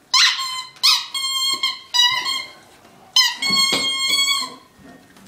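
Squeaker in a dog toy ball squeaking as a puppy bites down on it: several short squeaks in the first two seconds, then a longer squeal of about a second just past the middle.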